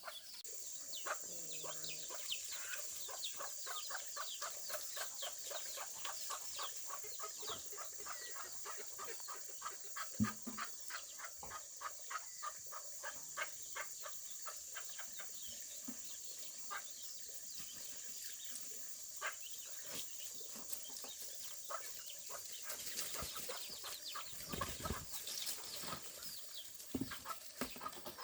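Chickens clucking and calling in rapid short notes, several a second, over a steady high-pitched hiss, with a couple of dull knocks.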